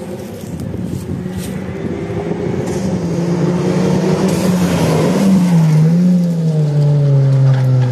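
Rally car engine growing steadily louder as the car approaches, its note falling and wavering as the driver eases off, with a brief rush of noise about four to five seconds in.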